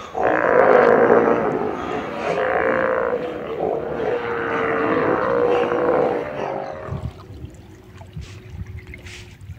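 A colony of sea lions roaring and growling together in a dense, overlapping chorus. About seven seconds in it cuts off, leaving only faint water sounds around the kayak.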